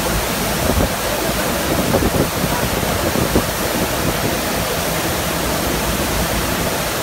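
Pumped sheet of water on a FlowRider surf simulator, rushing steadily and loudly, with a few brief louder surges in the first half.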